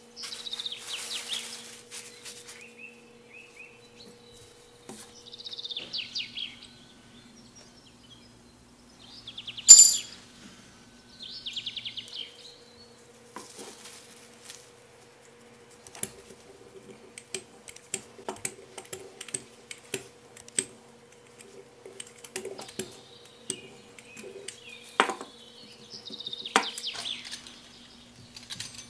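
A bird chirping in short bursts of high trills, several times, over the clicks and knocks of kitchen utensils being handled on a countertop. A sharp clink about ten seconds in is the loudest sound.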